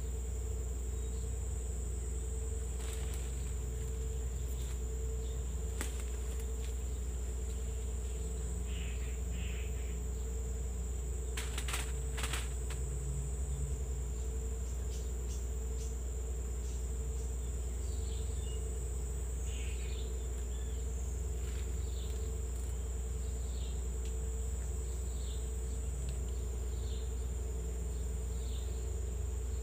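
Insects droning steadily: one high-pitched buzz held on a single pitch, with a lower pulsing drone beneath and a steady low rumble. From a little past halfway, short falling chirps repeat about once a second, and a few brief clicks come about twelve seconds in.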